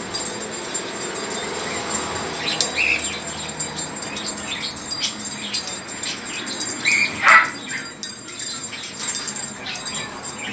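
Short high-pitched calls from small pets, brief chirps scattered throughout and one louder call about seven seconds in, over steady background noise.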